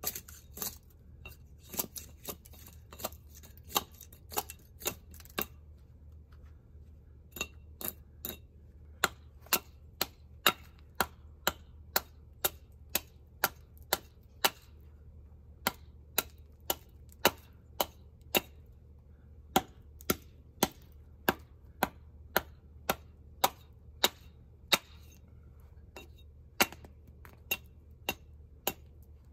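Double-bevel hatchet chopping down the side of a green white oak log in short, controlled strokes, a sharp chop of steel biting into the wood about twice a second, with a short pause about six seconds in.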